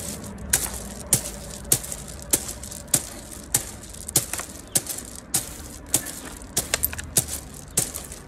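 Hands driving fingertips-first into a barrel of gravel, each thrust a sharp strike of stones, in a steady rhythm of a little under two a second.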